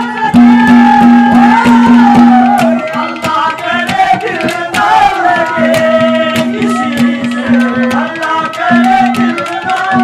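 Live Haryanvi ragni folk music: a hand drum beating quickly under a held low drone and a wavering melody line.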